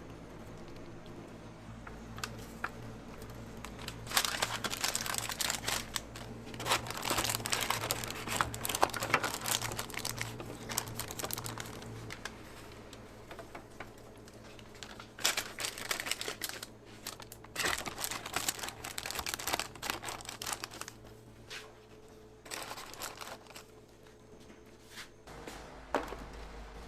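Paper or plastic packaging crinkling and rustling in several irregular bursts, typical of food being wrapped or bagged.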